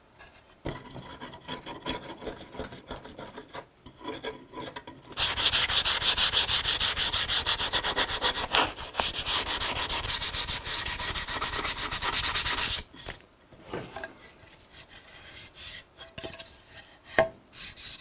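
Sandpaper rubbed by hand along the live edge of an elm board. Lighter rubbing at first, then about seven seconds of fast, loud, even back-and-forth strokes that stop abruptly, then softer rubbing.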